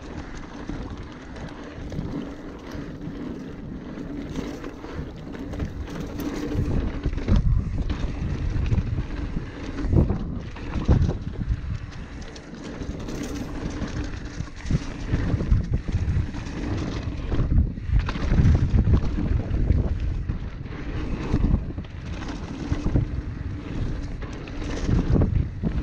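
Wind buffeting the microphone while a 2017 Ragley Blue Pig steel hardtail mountain bike is ridden over a dirt trail. The tyres rumble over the ground and the bike clatters over bumps and roots, with a sharp knock about ten seconds in.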